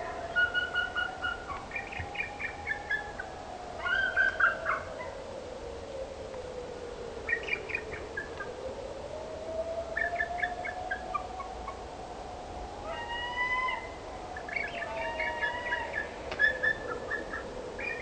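Bald eagles calling in bursts of quick, high, stuttering chattering and piping notes, over a steady tone that slowly rises and falls.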